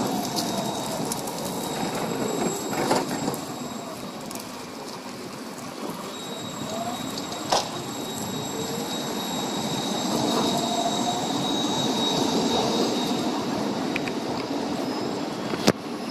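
Siemens Combino NF8 low-floor tram running on its rails: the electric drive whines in rising and falling glides over a steady rolling noise. From about six seconds in, a steady high squeal from the wheels joins it, and there are a few sharp clicks.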